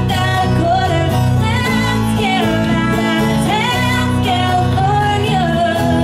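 Background music: a song with a singing voice over a steady instrumental accompaniment.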